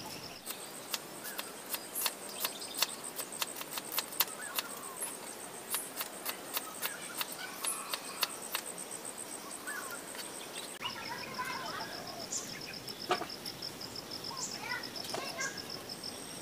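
Outdoor rural ambience: an insect's rapid, steady, high-pitched trill with birds chirping. For the first ten seconds or so there is also a run of sharp, irregular clicks, and when the clicks stop the trill drops lower in pitch.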